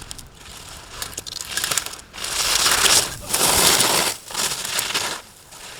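Ski edges scraping across hard-packed snow in three quick slalom turns, each a loud hissing rush about a second long, about two seconds in, with a few sharp clicks before them.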